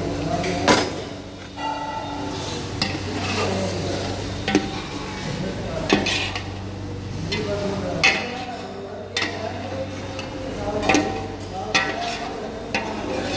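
Chicken frying in oil in a stainless steel pot, stirred with a metal spoon: a sizzle under scraping, with about six sharp clinks of the spoon against the pot.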